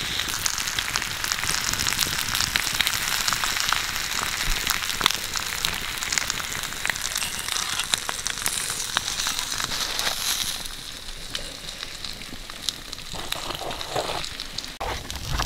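Pig intestines sizzling and crackling on a hot stone slab: a dense hiss full of small pops. It thins out and grows quieter about ten seconds in.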